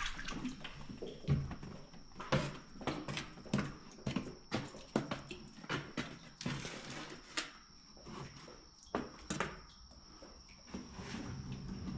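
Irregular knocks, scrapes and small water splashes of a kayak and its gear being worked through a corrugated metal culvert.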